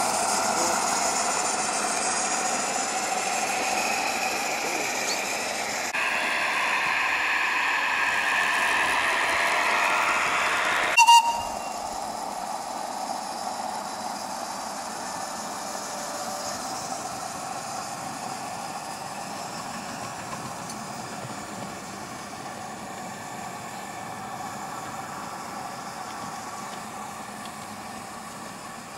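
Garden-scale model train of log wagons rolling past on the track: a steady running noise of wheels on rails with slowly wavering high tones for about the first eleven seconds. A sharp click follows, and the sound drops to a quieter steady background.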